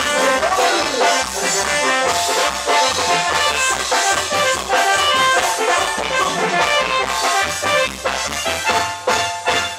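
Loud Mexican regional dance music with brass and drums, keeping a steady beat.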